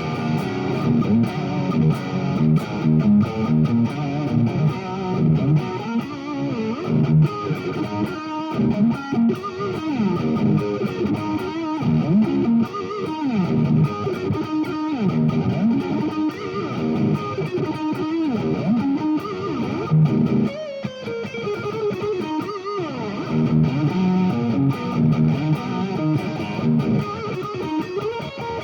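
Fernandes TEJ-70 Telecaster-style electric guitar played through an amp: picked single-note lines with bent notes, mixed with strummed chords.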